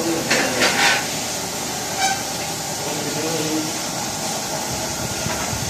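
Steady hum and hiss of workshop machinery, with a few short hissing bursts in the first second and faint voices in the background.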